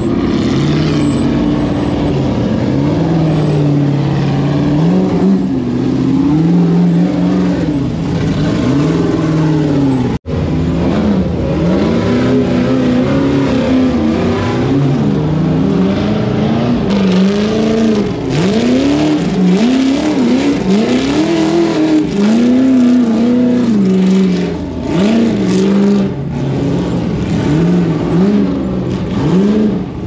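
Off-road vehicle engine revving up and down again and again, its pitch rising and falling about once a second. The sound breaks off for an instant about ten seconds in, then the revving goes on.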